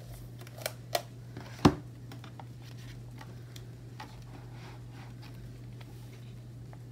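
Paper sticker-book pages being flipped and handled: a few sharp clicks in the first two seconds, the loudest just under two seconds in, then faint rustles and ticks. A steady low hum runs underneath.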